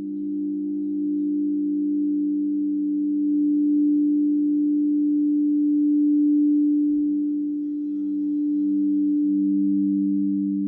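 Singing bowls sustaining two steady low tones together, one deeper and one higher, swelling and easing slowly in loudness.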